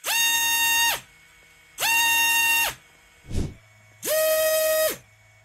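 Brushless FPV drone motor on a thrust stand spinning a 5-inch iFlight Nazgul F5 prop up twice in short throttle steps, each a rising whine held steady for under a second and then falling away. About four seconds in, the same motor spins the Foxeer Donut 5145 toroidal prop up once, with a clearly lower-pitched whine.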